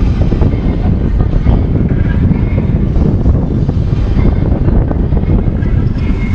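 Loud, uneven low rumble of wind buffeting the microphone over open water.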